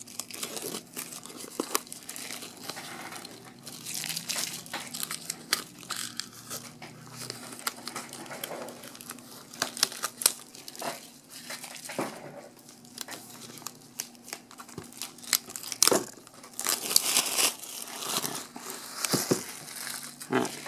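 Plastic shrink-wrap crinkling and tearing as it is peeled off a box, with irregular crackles and snaps and louder bursts of crinkling, the loudest a few seconds before the end.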